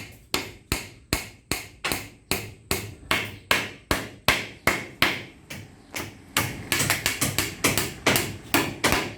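Hammer driving wire nails into bamboo floor slats, with steady blows about two or three a second and a quicker run of blows after about six and a half seconds.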